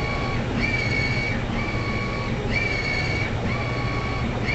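Print-head carriage of a Brother GT-782 direct-to-garment printer shuttling back and forth while printing white ink, a steady motor whine on each pass, about one pass a second with short pauses between.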